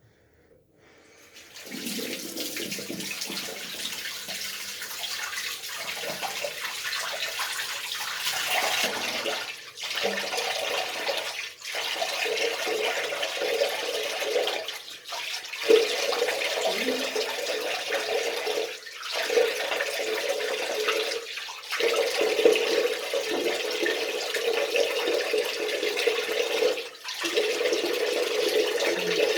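Water running from a tap into a sink, a steady splashing hiss that starts after a second or so and breaks off briefly several times.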